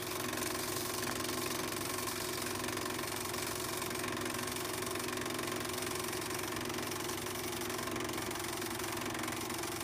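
Cine film projector running steadily, a constant mechanical whir with an even hum.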